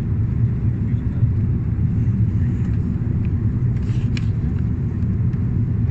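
Steady low rumble of an airliner's engines and airflow heard inside the passenger cabin during the descent to land.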